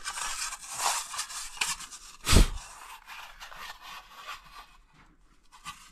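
Hands scraping and rubbing old metal tins across a wooden shelf while picking up a tobacco tin, with one loud thump about two and a half seconds in; the handling grows quieter near the end.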